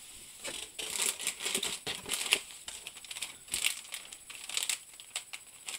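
A plastic snack bag crinkling and rustling in irregular bursts as it is handled.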